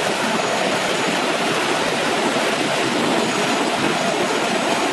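Industrial meat-processing machine running: a loud, steady, even noise that does not change.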